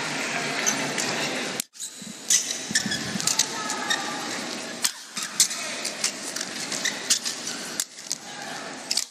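Indoor arena crowd noise at first, then a badminton rally: a run of sharp racket strikes on the shuttlecock at an irregular pace, with shoes squeaking on the court.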